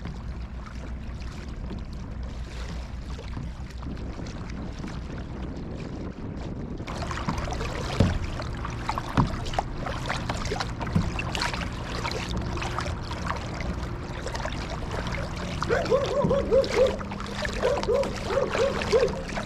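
Boat motor idling with a steady low hum, over water and paddle noise from kayaking. About a third of the way in, splashy noise and scattered knocks join in, and near the end comes a run of short, repeated pitched sounds.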